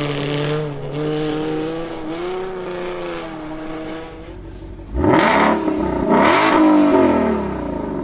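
Ferrari F50's V12 engine running under throttle on a sliding car, then revved hard twice about five and six seconds in, the pitch sweeping up steeply each time before falling away.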